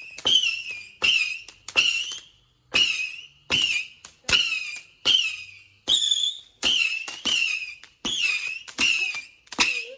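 Consumer firework cake firing a rapid series of whistling shots. Each shot is a sharp pop followed by a short, wavering, high-pitched whistle, coming more than once a second and keeping on through the whole stretch.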